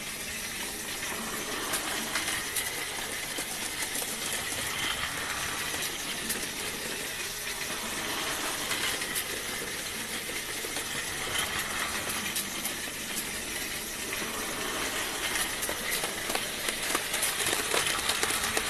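Battery-powered Plarail toy trains running on plastic track: a steady small gear-motor whir with a continuous light clicking and clattering of wheels over the track joints, growing somewhat louder toward the end.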